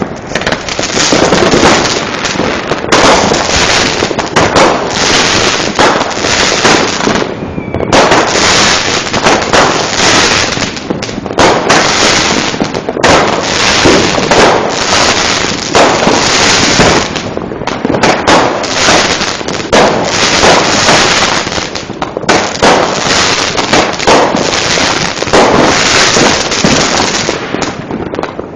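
A loud, dense barrage of fireworks and firecrackers: rapid, overlapping bangs and crackling with hardly a gap, easing only for a few short moments.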